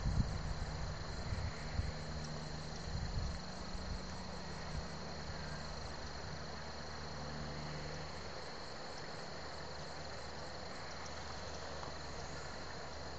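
Insect chorus, a continuous high-pitched steady drone, with low rumbles and bumps during the first four seconds or so.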